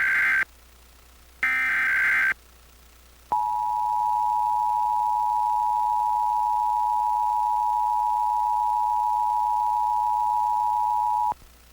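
Emergency Alert System Required Monthly Test. First come two roughly one-second bursts of the SAME digital header, a shrill warbling data tone. About three seconds in, the EAS two-tone attention signal (853 and 960 Hz together) starts, holds steady for about eight seconds, then cuts off abruptly.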